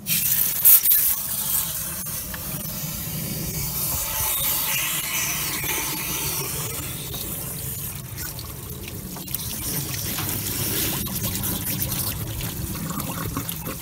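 Garden hose jet flushing out an engine's opened water pump housing, with dirty water gushing and splashing out of the block, in a steady rush. A sharp knock sounds just under a second in.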